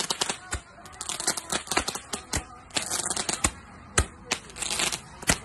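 Handheld roman candle firing: sharp pops, one for each ball launched, about every second, with stretches of fizzing hiss and crackling between them.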